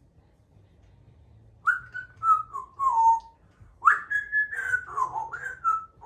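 Congo African grey parrot whistling: two short phrases of gliding whistled notes, the first starting about a second and a half in and stepping down in pitch, the second rising, holding and then falling.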